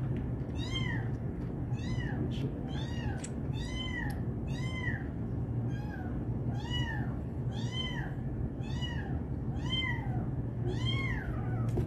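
Orphaned young kitten mewing over and over: high calls that each rise and fall, about one and a half a second, over a steady low hum.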